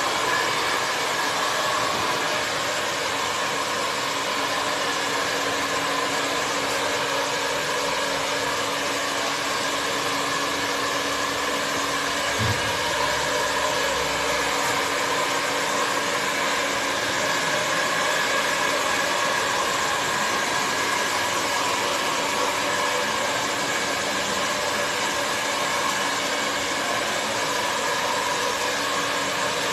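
Handheld hair dryer running at one steady setting: a continuous rush of air with a faint steady hum from its motor.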